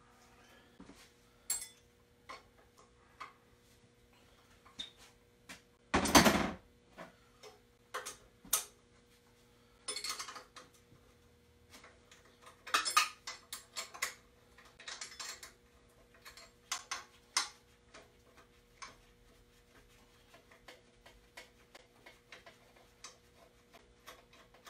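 Wrench and steel accessory brackets clinking and knocking at the front of a Ford 351 Cleveland V8 as its V-belt accessory drive is taken apart by hand. Short scattered clinks in small clusters, one loud clank about six seconds in, over a faint steady hum.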